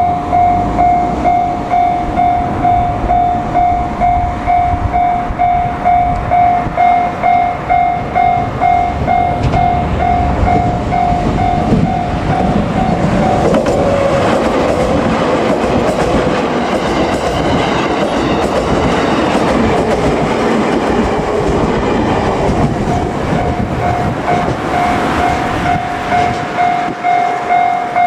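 Japanese level-crossing warning bell ringing in a fast, even repeated ding. For about ten seconds in the middle it is drowned by a JR Kyushu 787-series electric train passing over the crossing, with its wheels clattering over the rail joints. The bell is heard again near the end once the train has gone by.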